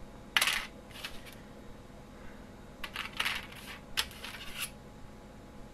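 A thin copper-wire antenna lobe being pressed flat and shifted on a cardboard-covered desk: a handful of short, light scrapes and metallic taps.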